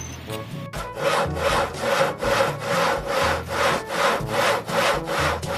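Hand saw cutting through wood in rapid, even back-and-forth strokes, starting about a second in.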